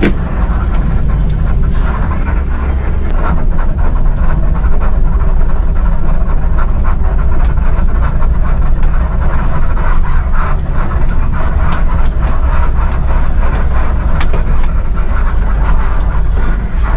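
Mercedes-Benz intercity bus's diesel engine running steadily as a low drone, heard from inside the driver's cab, with occasional short clicks and rattles from the cab.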